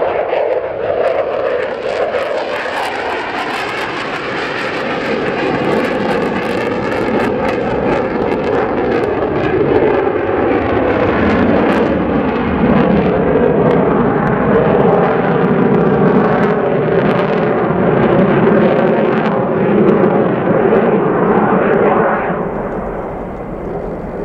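A McDonnell Douglas F-15 Eagle's twin Pratt & Whitney F100 turbofans running loud as the fighter climbs away and banks overhead. The jet noise is steady, with a wavering, shifting tone as the aircraft moves, and eases slightly near the end.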